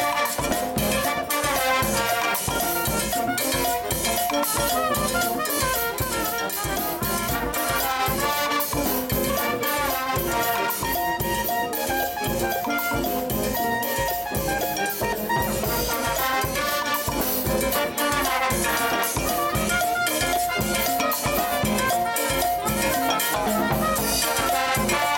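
Live brass band playing dance music: trumpets, saxophones and tubas over a percussion section of drum kit, congas and timbales keeping a steady beat.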